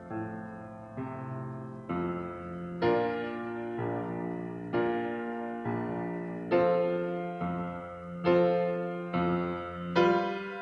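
Piano playing slow, gentle chords, a new chord struck about once a second and left to ring and fade.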